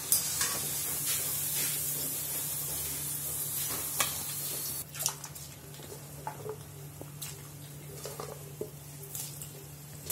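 Potato fries deep-frying in oil in an iron kadai: a steady sizzle with scattered clicks and knocks of utensils against the pan, over a steady low hum. The sizzle turns quieter about five seconds in.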